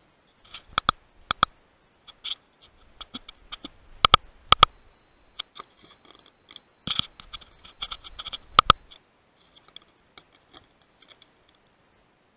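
Close handling noise on a rifle-mounted digital scope: a run of sharp clicks, several in quick pairs, with light scratching and ticking between them. A faint steady high tone sounds through the middle.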